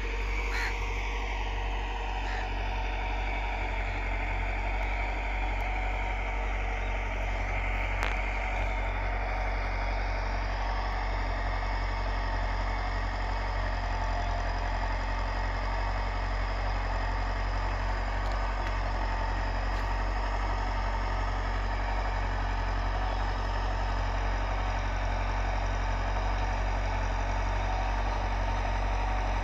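Massey Ferguson 375 diesel tractor engine running steadily under load while it drives a rotavator through the soil.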